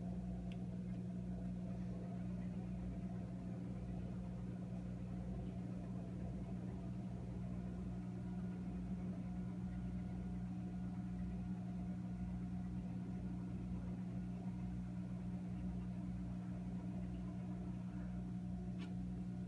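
Motorized roller shade's tubular motor humming steadily as the blackout shade lowers, with a faint click near the end.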